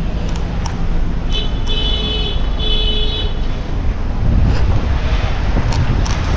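Road traffic with a heavy low rumble of vehicles, growing stronger past the middle. A vehicle horn sounds twice, a held blast a little over a second in and a shorter one around three seconds.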